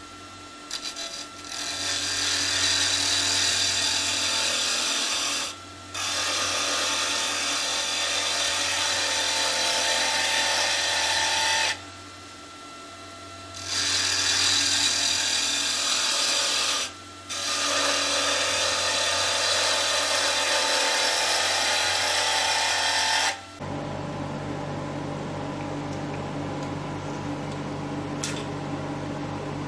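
Charnwood W821 midi woodturning lathe spinning wooden pen blanks while a hand-held turning tool cuts them: a steady hiss of the cut over the low hum of the lathe, breaking off briefly four or five times as the tool is lifted away. About 24 s in the hiss stops for good and only a quieter steady hum remains.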